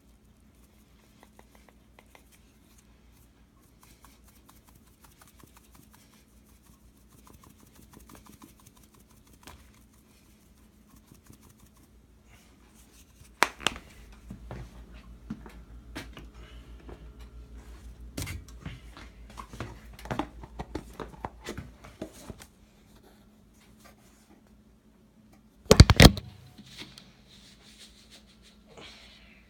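Hands handling objects and the recording phone: faint scattered clicks and scrapes, then a busier stretch of knocks and rattles. Two loud knocks come near the end.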